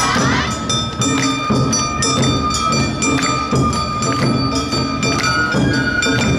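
Awa odori festival band (narimono) playing: a fast, even beat of taiko drums and the clanging kane hand gong, with a high bamboo-flute note held over them for several seconds.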